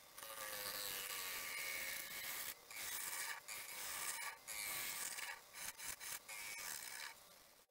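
Bowl gouge cutting the inside of a spinning yew bowl on a wood lathe: a continuous shearing noise of wood being cut, broken by several short gaps, that stops suddenly at the very end.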